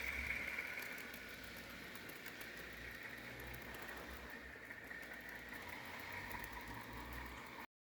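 Rapido HO scale RSC-14 model locomotive's DCC sound decoder playing a diesel engine running steadily and faintly; it cuts off suddenly near the end.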